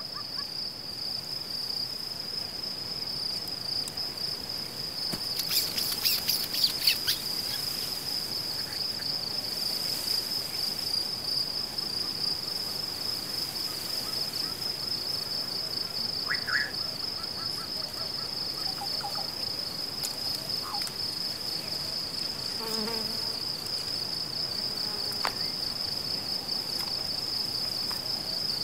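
Insects trilling in a steady, high-pitched, finely pulsing chorus. About six seconds in there is a brief burst of crackling, and a few faint bird chirps come and go later on.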